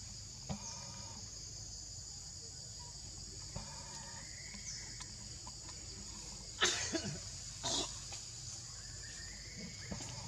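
Two short, harsh monkey calls about a second apart, from macaques in the tree canopy, over a steady high drone of forest insects.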